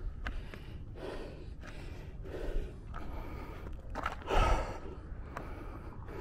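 A hiker breathing hard close to the microphone, a heavy breath about every second, with one louder exhale about four seconds in, over a low rumble of wind on the microphone.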